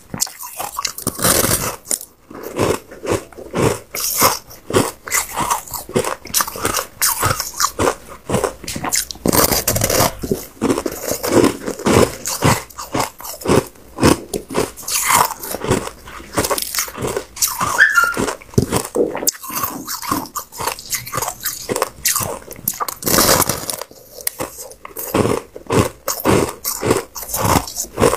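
Crunching bites and chewing of a large chunk of packed shaved ice, held close to the mouth: a dense, crisp run of crunches with short pauses between bites.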